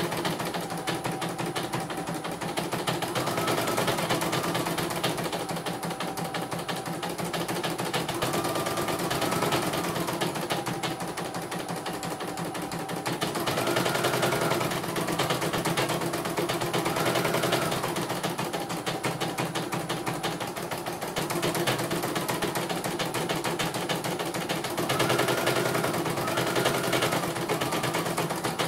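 CNY portable computerized embroidery machine stitching on a test run: a fast, steady rattle of the needle, with a motor whine that rises and falls every few seconds as the hoop is driven.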